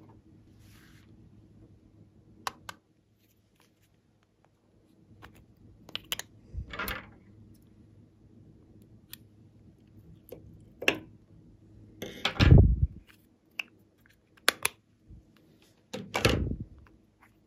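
Scissors cutting into a small plastic capsule by hand, with sharp snips and clicks scattered throughout. Three louder, longer handling noises come about a third of the way in, past the middle and near the end.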